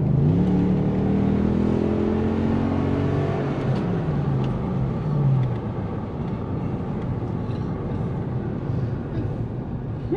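Toyota 1UZ-FE VVTi V8, running on a Link aftermarket ECU, accelerating: the engine note climbs for about three and a half seconds and then drops as the automatic gearbox shifts up. After the shift it settles into a steady drive with road noise.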